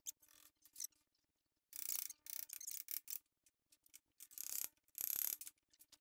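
A few short, faint bursts of scratchy, hissing rubbing noise, each about half a second, from hand work on a new front brake disc, over a faint steady hum.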